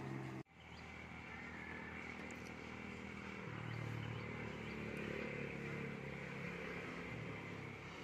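Faint steady hum of a small motor engine running, with open-air background noise. The sound drops out for an instant about half a second in, then returns.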